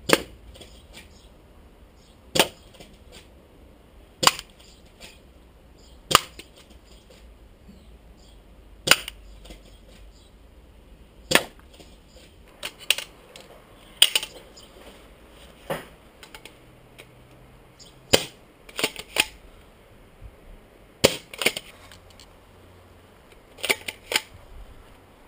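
G&P M870 airsoft pump-action shotgun being fired: about eleven sharp cracks, one every two to three seconds, several followed by a quick run of lighter clicks.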